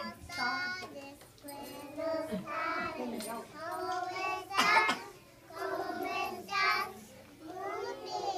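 A group of preschool children singing a song together in short phrases, with a few voices standing out louder about halfway through.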